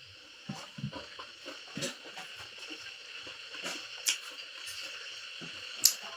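A person eating: chewing and wet mouth sounds with scattered small clicks, and one sharp click near the end.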